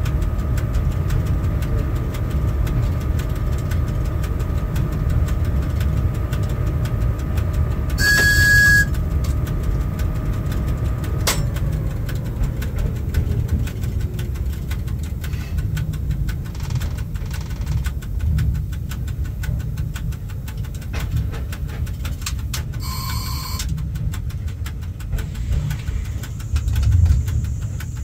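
Inside the cab of a ChS4 electric locomotive under way: a steady low rumble of the running gear. A steady hum stops with a click about a third of the way in, then a tone falls away in pitch. Two short high-pitched beeps sound about fifteen seconds apart.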